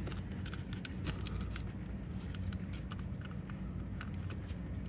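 Small, scattered plastic clicks and handling noise as a power window switch panel is pressed and fitted into a car door trim panel, over a steady low hum.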